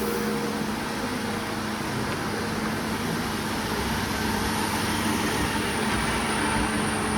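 Steady running noise of factory machinery, with a constant low hum and a faint high whine.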